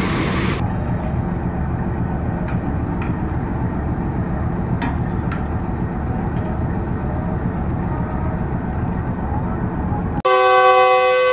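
GEU-20 diesel locomotive running with a steady low rumble and a few faint clicks. About ten seconds in, its horn sounds suddenly and loud, a chord of several steady tones: the departure signal, very strong.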